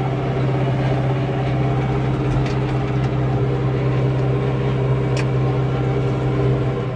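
Massey Ferguson 5445 tractor's four-cylinder diesel engine running steadily with a deep, even drone. Its note changes abruptly right at the end.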